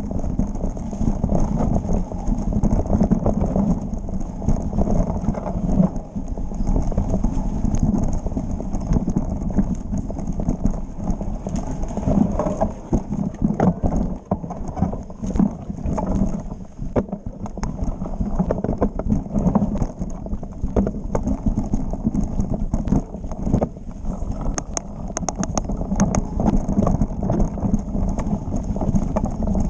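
Mountain bike rattling over a rough trail on a fast descent: a dense, irregular run of knocks and clatters over a steady low rumble.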